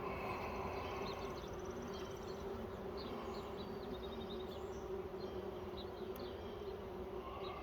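Honeybee colony buzzing around an opened hive: a steady, even hum.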